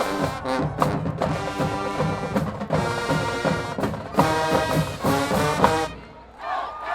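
High school marching band playing loud, punchy brass chords over drums, cutting off about six seconds in. A crowd starts cheering and whooping right after.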